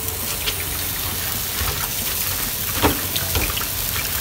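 Water sloshing and trickling as a hand swishes pechay (bok choy) leaves around in a bowl of washing water, with a few soft knocks against the bowl. Under it, a pork-and-tomato sauté simmers in the wok.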